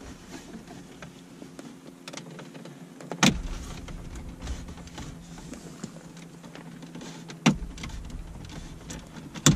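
Plastic dash trim bezel on a 2014 Jeep Compass being pried off with a plastic trim tool: the panel's retaining clips pop loose with three sharp snaps, about three seconds in, near seven and a half seconds and at the very end, with faint rustling and scraping of the tool and hands in between.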